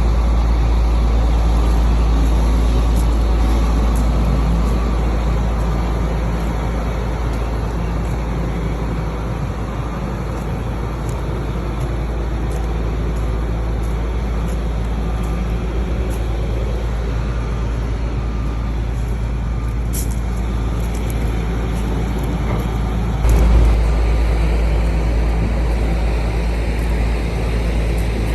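Motor vehicle noise: a steady, heavy low rumble with road noise over it. Late on, a brief louder bump stands out.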